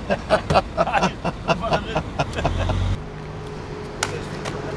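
Music with a fast, even beat for about the first two seconds. It gives way to a car engine's low rumble, then a quieter steady outdoor hum with a few clicks.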